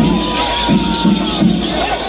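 Pulikkali tiger-dance percussion music with a steady low beat, about two or three strokes a second, over a cheering crowd.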